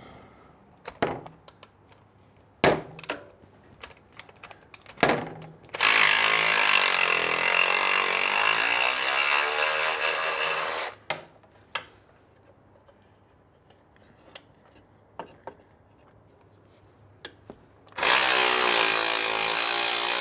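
Cordless power tool spinning out skid plate bolts on an ATV. It runs twice for a few seconds each, once about six seconds in and again near the end, with short clinks and knocks of metal handling in between.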